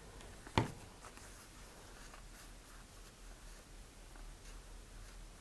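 Handling noise from a model rocket: a single sharp knock about half a second in, then faint rubbing as fingers press a wet decal onto the body tube.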